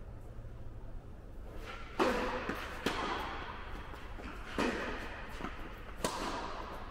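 Tennis rally: a racket strikes the ball and the ball bounces on the court, four sharp hits about a second or two apart, each ringing on in the echo of a large indoor hall.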